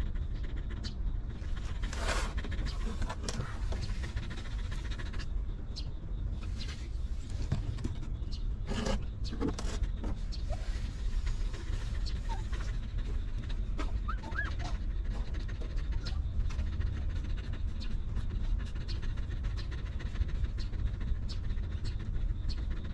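Nursing mother dog panting steadily, with a couple of brief knocks about two and nine seconds in and a few short, faint squeaks about two-thirds of the way through.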